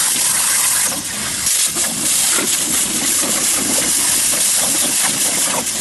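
CNC plasma torch cutting metal: a loud, steady hiss from the arc and its air jet, with a brief dip about a second in and another near the end.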